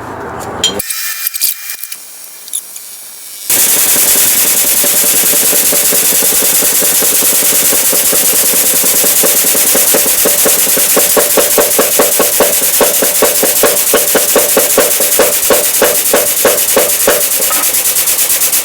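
A pneumatic impact gun hammering rapidly over a steady hiss of air, driving the new wheel hub into the front wheel bearing. It starts suddenly about three and a half seconds in, after a few light metal clinks.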